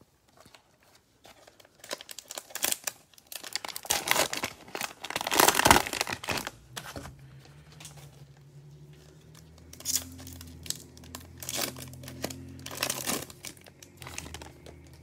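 Plastic cello wrapper of a football trading card pack crinkling as it is handled and torn open, loudest about five seconds in, with a few more crinkles near the end.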